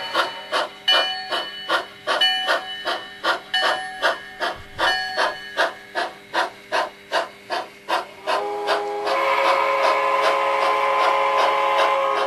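Sound decoder (Soundtraxx Tsunami) in an HO-scale Pennsylvania Railroad 0-6-0 steam switcher playing recorded steam-locomotive sound: exhaust chuffs at about three a second with a bell ringing. About eight and a half seconds in, a steam whistle comes in and is held steadily to the end.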